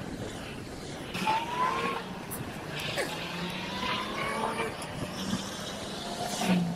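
Car traffic passing on the road beside the cycle path: a steady low engine hum with tyre noise, and a couple of slowly rising higher whines about a second in and again around three seconds.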